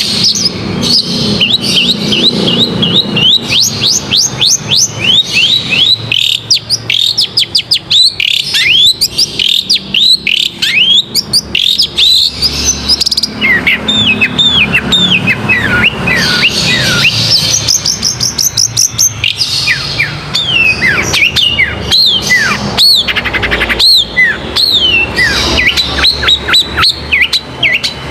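Long-tailed shrike singing a fast, unbroken string of sharp chirps and quick downward-sweeping whistles.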